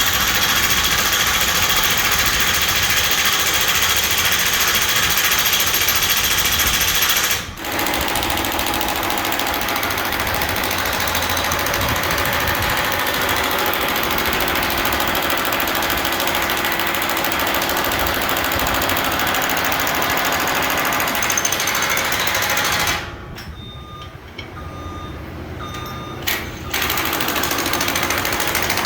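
Pneumatic impact wrench hammering as large structural bolts on a drop tower segment are torqued down, with long runs of rapid rattling. It stops briefly about seven seconds in and again for a few seconds near the end before starting up once more.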